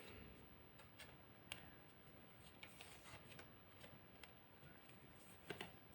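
Near silence: room tone with a few faint, scattered clicks, one about a second and a half in and a small pair near the end.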